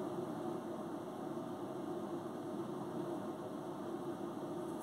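Steady mechanical hum of a running machine.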